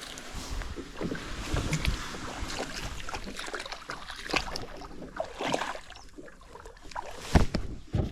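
Irregular knocks and clatter, as of gear being handled, over wind noise on the microphone; the loudest knock comes near the end.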